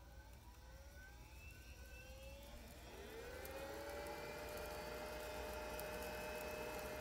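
Eppendorf 5424 microcentrifuge with its FA-45-24-11 rotor spinning up: a motor whine that rises in pitch over the first three seconds, then settles into a steady high tone at running speed.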